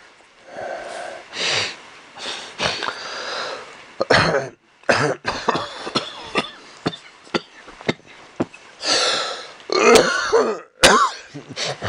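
A person coughing and clearing their throat in a series of harsh bursts, the loudest near the end, with a few sharp clicks in between.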